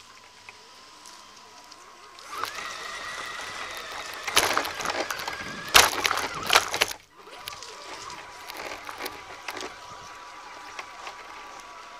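Scale RC crawler driving over rough forest ground, heard from its own onboard camera: a steady electric-motor whine, which rises in pitch about two seconds in, with the body and chassis rattling. From about four to seven seconds in come loud clattering knocks and bumps that cut off suddenly, then the whine goes on with lighter rattling.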